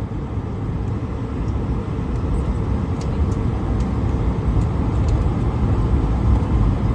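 Airbus A220-300's Pratt & Whitney PW1500G geared turbofan engines, a steady low rumble that slowly grows louder.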